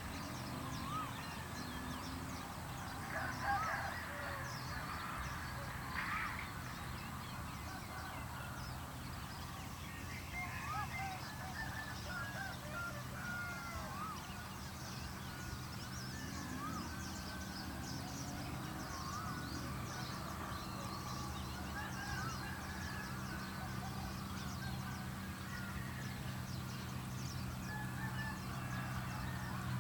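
Outdoor field sounds: many short animal calls repeating throughout, over a steady low hum.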